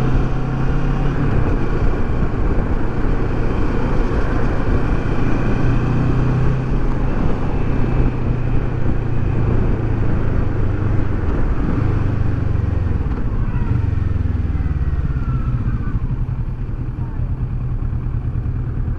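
Kawasaki Versys 650's parallel-twin engine running steadily as the motorcycle rides through city traffic, with wind rush on the microphone. The engine and wind ease off somewhat near the end as the bike slows.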